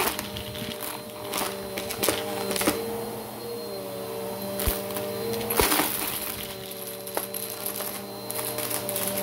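Bissell Power Force Helix upright vacuum cleaner running steadily on carpet, its motor humming with a high whine, while wooden letter tiles and small plastic chips clatter and rattle up through the nozzle in irregular bursts about once a second.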